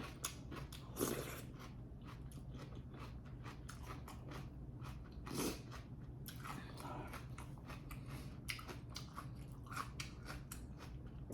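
Close-up eating sounds: a person chewing and biting food, with many irregular small crunches and mouth clicks. A steady low hum runs underneath.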